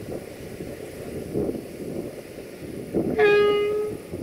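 CFR Marfa class 060-DA (LDE2100) diesel-electric locomotive sounding one short, steady horn blast about three seconds in, lasting under a second, over a low rumble as it approaches.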